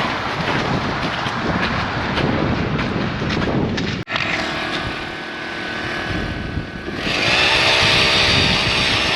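Strong wind buffeting the microphone. After a sudden cut, a small engine revs up about seven seconds in and then runs steadily at high speed.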